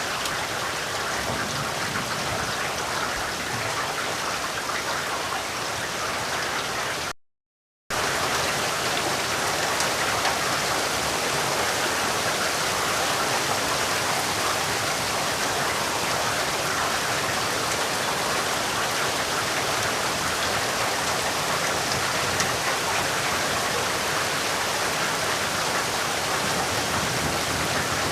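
Steady rain falling, an even hiss of drops. About seven seconds in it cuts out completely for under a second, then comes back slightly louder.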